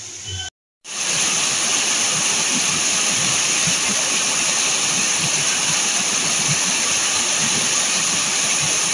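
Water rushing and splashing over a small rocky cascade, a steady, loud rush of white water that cuts in just under a second in.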